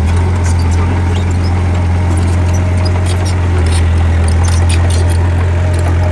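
Bulldozer's diesel engine running steadily with a deep low hum, and scattered light clicks and ticks over it.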